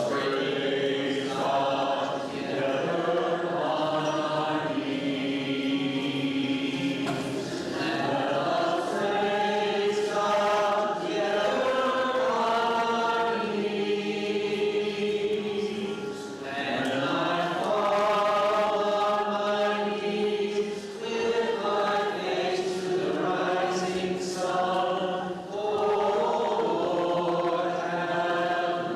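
A hymn sung by many voices, in slow, long-held notes.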